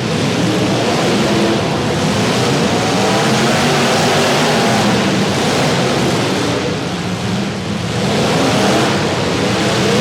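Several demolition derby cars' engines running and revving at once, their pitch rising and falling, with a short lull a little after the middle before they rev up again.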